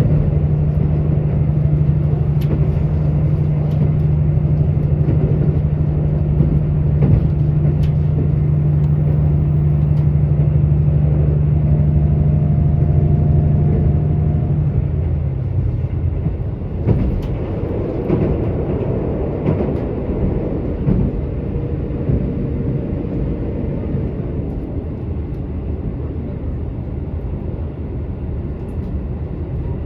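KiHa 85 diesel railcar's Cummins engine heard from inside the car, running under power with a steady low drone. About halfway through the drone falls away, leaving the rumble of wheels on rail and a few light clicks.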